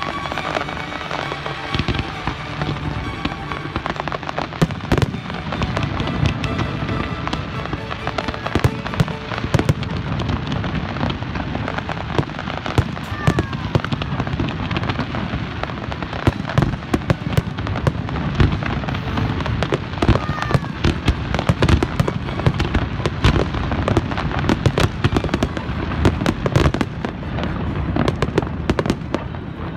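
Aerial fireworks bursting in quick succession: a dense, continuous run of sharp bangs and crackles with deep booms underneath.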